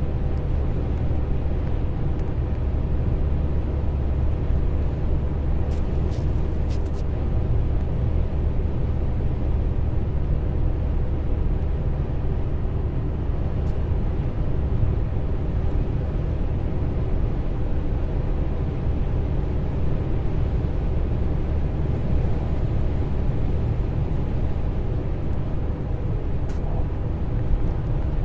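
Steady road and engine noise heard inside a car's cabin while it drives along a motorway, mostly a low rumble with a faint steady hum. A few faint ticks come about six to seven seconds in.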